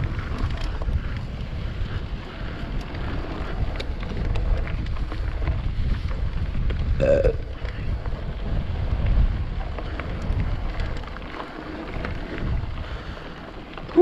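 Wind buffeting an action camera's microphone as a mountain bike descends a rough, rocky trail, with tyre rumble and the bike rattling and clicking over stones. A brief pitched sound cuts through about seven seconds in.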